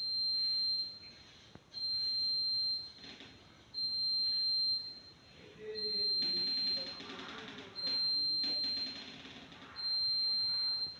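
Smoke detector of a newly installed fire alarm system sounding on test, showing it works. It gives a single high-pitched beep about a second long every two seconds, six times.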